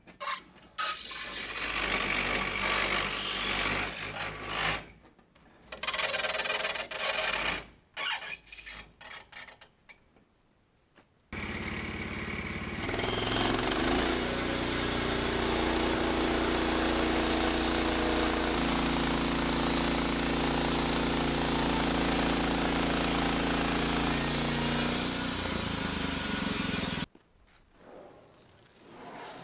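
Norwood LM29 portable bandsaw mill running, its engine and band blade sawing through a pine log. The sound comes in several short stretches, then runs steadily for about fifteen seconds and cuts off abruptly near the end.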